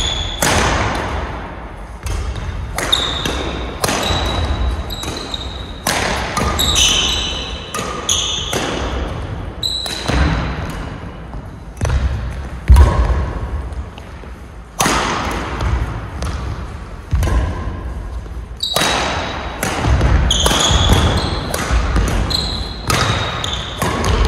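Badminton rally: rackets strike the shuttlecock sharply about once a second, amid short high squeaks of court shoes on the floor and low thuds.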